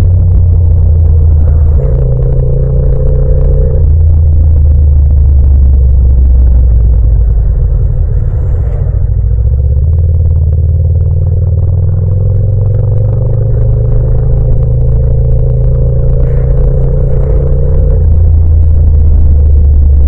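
Yamaha MT-07's 689 cc parallel-twin engine running steadily under the rider, heard raw with no wind noise. It eases off around the middle as the bike slows, then the note climbs again as it picks up speed.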